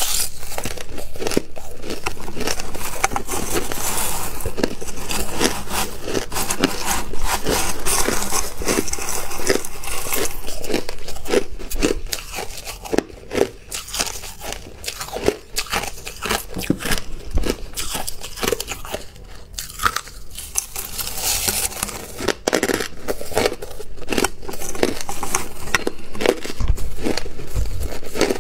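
Crushed ice being crunched and chewed in the mouth, close to the microphone: a dense, steady crackle of crunches. It thins to separate cracks for a stretch about halfway through, then grows dense again.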